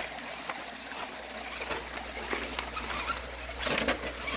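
Small creek trickling steadily, with scattered short rustles and knocks that bunch together near the end.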